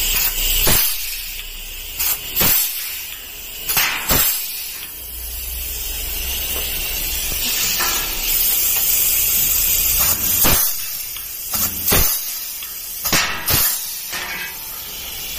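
Pneumatic air blind-rivet gun setting 4.8 mm rivets in steel sheet, one after another: a series of sharp cracks as the rivets are pulled and their mandrels snap, some coming in quick pairs. A steady hiss of compressed air runs beneath them.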